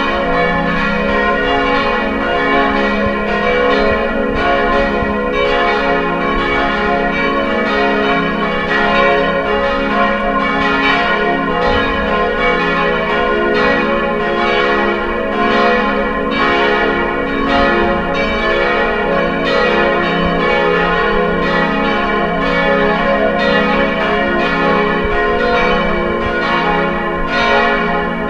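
Church bells ringing in a continuous peal, the strikes of several bells overlapping in a steady succession.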